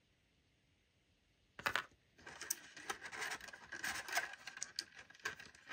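Small plastic action-figure parts handled close to the microphone. There is a sharp click about a second and a half in, then a few seconds of rubbing and scraping broken by small clicks.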